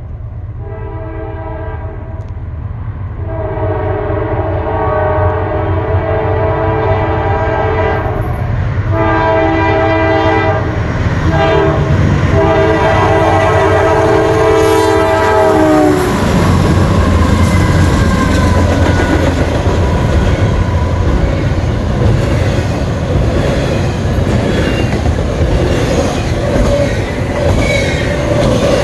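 Diesel freight locomotive's multi-chime air horn sounding several long blasts, growing louder as the train approaches; the chord drops slightly in pitch as it passes, about sixteen seconds in. The engines' rumble and the freight cars' wheels clattering on the rails follow.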